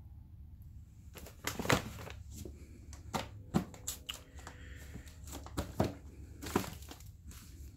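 Cardboard firework cakes and packaging being handled: irregular knocks and clicks with crinkling and rustling as the cakes are lifted out of the assortment box and set down.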